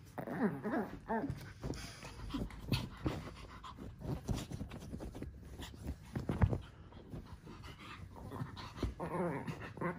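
Japanese Chin dogs vocalizing and panting as they play-wrestle on cushions, with scuffling on the fabric throughout. A loud thump about six and a half seconds in.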